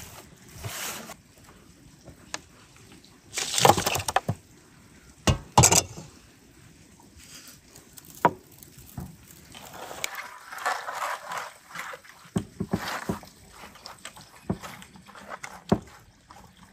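Raw fish steaks being handled and moved on a metal tray: wet squelches and slaps of the fish flesh, with a few loud sharp ones in the first half.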